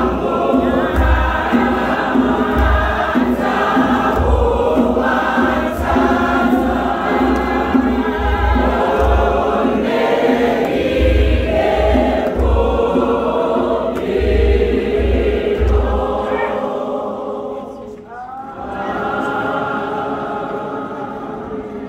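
Congregation singing a hymn together in many voices, with a low, regular beat underneath. About three quarters of the way through, the beat stops and the singing fades. It then picks up again more softly near the end.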